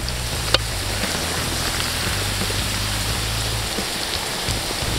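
Diced potatoes and carrots sizzling steadily as they fry in oil in a wok. A single sharp click about half a second in.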